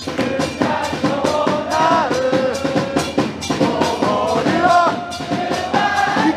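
Football supporters in the stands singing a chant in unison to a steady drumbeat.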